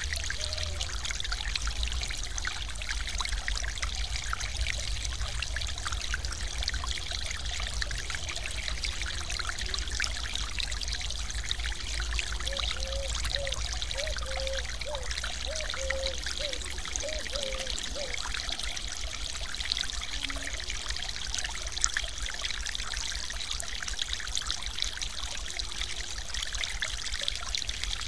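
Steady rush and splash of a stream pouring over a low weir in a thin sheet of falling water.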